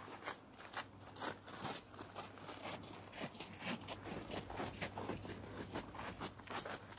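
Footsteps crunching on a snowy path at a steady walking pace, about two steps a second.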